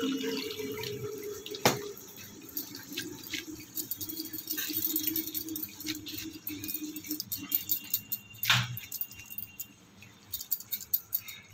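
Boiled noodles draining in a perforated steel colander: water dripping through while the metal colander clinks and rattles as it is handled, with a sharp clink about two seconds in and another about eight and a half seconds in.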